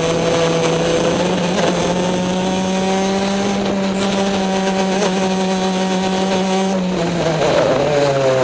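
Two-stroke Easykart racing kart engine running hard, recorded onboard. Its pitch climbs slowly and holds, then drops briefly about seven seconds in as the throttle comes off for a corner, and climbs again near the end.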